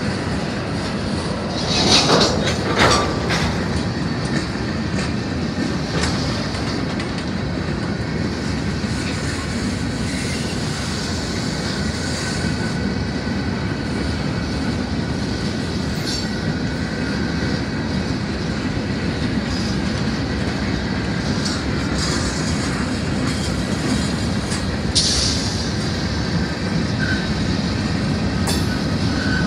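Freight train backing up slowly, its boxcars and covered hoppers rolling past with a steady rumble and clatter of wheels on rail. Brief louder metallic bursts come about two seconds in and again near the end.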